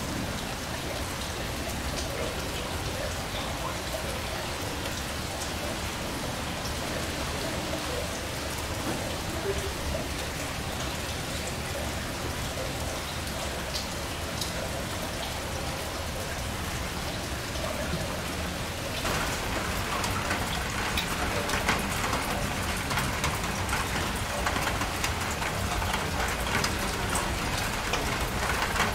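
Steady rain falling, with scattered drop ticks; it grows louder about two-thirds of the way through.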